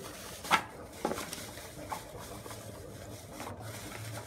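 Thin plastic bag rustling as fresh red peppers are tipped out of it into an aluminium pot, with a sharp knock about half a second in and a few lighter knocks after.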